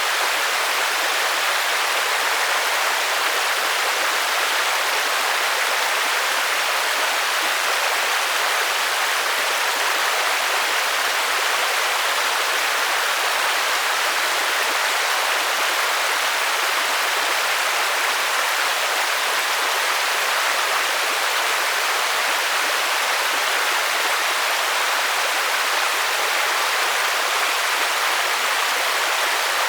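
Steady rain, an even, unchanging hiss with no separate drops standing out and little low rumble.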